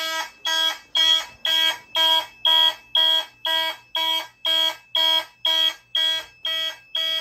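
Fire alarm system horns sounding in alarm after a smoke detector on the system is tripped. They blast in an even pulsed pattern of about two short, shrill blasts a second.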